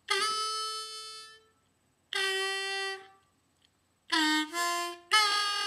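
B-flat diatonic harmonica (blues harp) playing a slow blues practice riff in the low holes, with draw notes bent down a half step. First comes one held note about a second and a half long, then a shorter note after a pause, then a quick run of three or four notes near the end.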